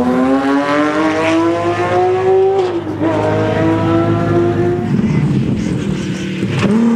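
Rally car engine under hard acceleration, its pitch climbing, with a quick upshift about three seconds in. The pitch then holds steady until the engine sound turns rougher and noisier about five seconds in, and it starts rising again near the end.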